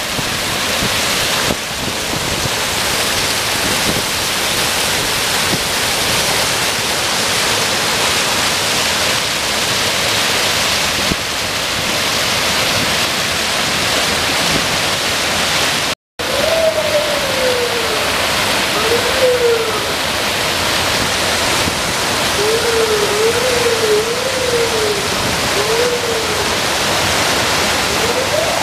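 Storm floodwater pouring over a lake spillway: a loud, steady rush of falling, churning water, the high flow coming from 4 to 5 inches of rain in a day. The sound drops out for a moment about halfway. In the second half a faint wavering tone rises and falls several times beneath the rush.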